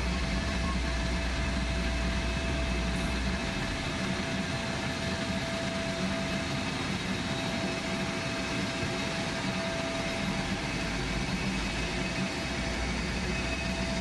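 Steady machinery noise inside the main deck of a Boeing 767-300F freighter as its main cargo door closes: a continuous low hum with a constant mid-pitched whine over it, unchanging throughout.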